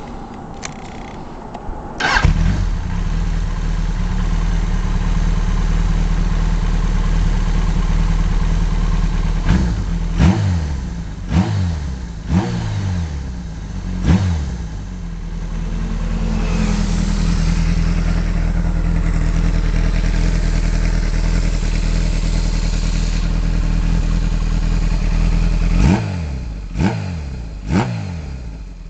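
Kawasaki Z1 air-cooled inline-four, bored out to 1197 cc, running through an NGC straight exhaust whose silencer baffle has been stripped bare of steel wool and glass wool. It starts suddenly about two seconds in and settles to idle. It is then blipped in short throttle stabs, five in a row around ten to fourteen seconds in and three more near the end, with the revs falling back to idle after each.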